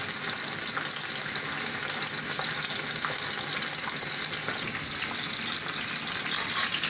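Lamb saddle steaks on the bone sizzling steadily in hot vegetable oil in a cast-iron frying pan, with scattered small spits and pops.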